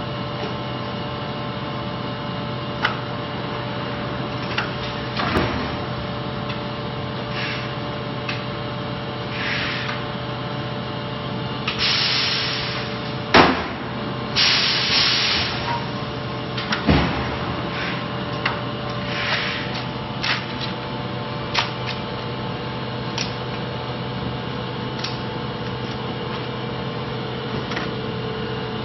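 Kinder Joy egg making machine running: a steady mechanical hum, broken every few seconds by short bursts of hissing and a few sharp knocks, the loudest cluster near the middle.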